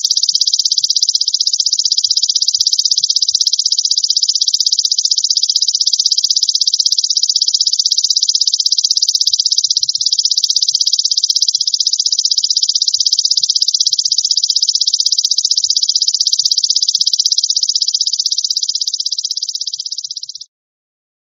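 Belalang emas (golden grasshopper) insect calling: a continuous, rapid, high-pitched buzzing trill that eases off slightly near the end and then stops suddenly.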